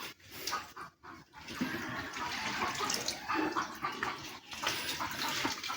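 Milk squirting into a pail as a cow is milked, a steady splashing with irregular squirts.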